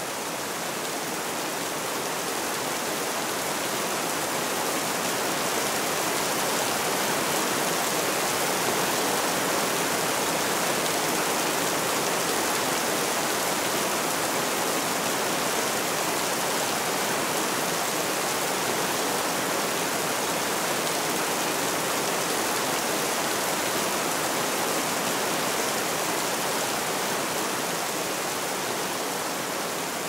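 Rain sound effect: a steady, even downpour hiss that swells slightly after the start and eases a little near the end.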